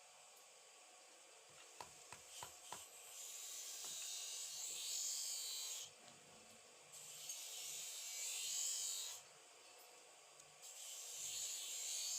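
Abrasive scrubbing on the rusty metal of an old folding knife, the rust being worked off. There are a few light clicks first, then three long scrubbing passes, each lasting two to three seconds.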